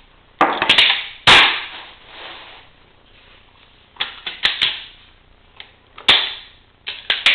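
Sharp metal clicks and clacks from a Browning M1919A4 machine gun's mechanism being worked by hand: a few clicks about half a second in, a loud clack a little after a second, more clicks around four seconds, another loud clack about six seconds in, and a few clicks near the end.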